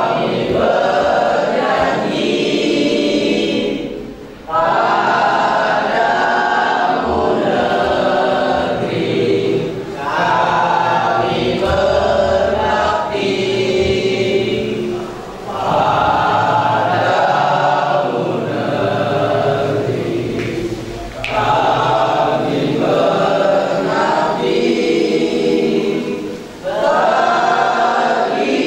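A class of students and their teacher singing together in unison, in phrases of about five to six seconds with short breaths between them.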